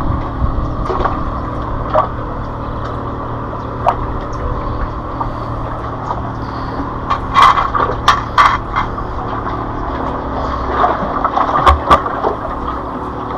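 Sharp knocks and scrapes against shoreline rock as a hooked freshwater drum is hauled up over the boulders and grabbed by hand, a cluster of them past the middle and another near the end, over a steady outdoor rumble.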